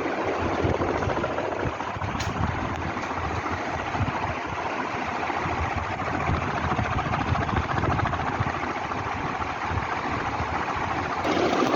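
60-inch Amber Industrial FC-60 ceiling fan running: a steady whoosh of moving air over the motor's hum, with a rapid low flutter. The sound shifts slightly near the end.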